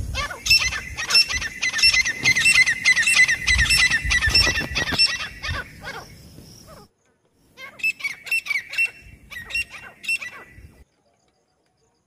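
Grey francolins calling: a fast run of sharp, repeated high notes for about six seconds, then after a brief gap two shorter runs, stopping about a second before the end.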